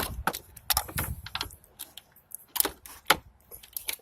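Sharp, irregular metallic clicks and clinks of hand tools: a 13 mm tool being handled and fitted onto the chassis ground nut.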